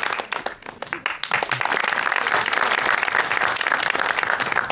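Audience applauding: a dense patter of many people clapping that thins briefly about half a second in, then swells again.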